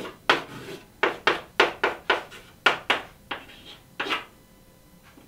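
Chalk writing on a chalkboard: a quick, uneven run of about a dozen sharp taps and short scrapes as the characters go down, stopping about four seconds in.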